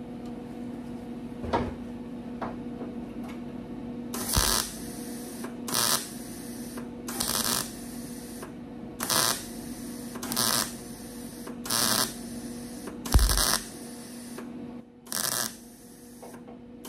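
Electric welder laying short tack welds on a nut in thin car-body sheet metal: eight bursts of about half a second each, a second or so apart, over a steady low hum. The welder is turned down so as not to burn through the sheet metal.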